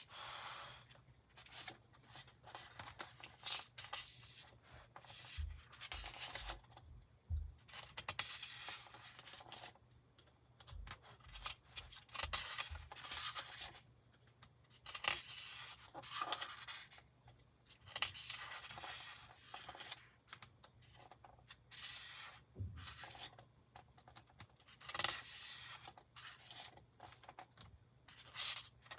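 Glossy magazine pages being turned and smoothed by hand, a soft paper rustle and swish every second or two, with a few brief low thumps.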